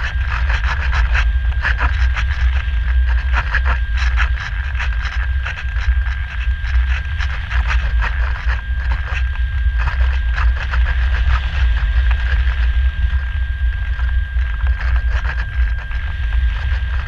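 Airflow buffeting the onboard camera of a Radian Pro RC glider in flight: a loud, steady low rumble with fast rattling clicks and a thin, steady high whine.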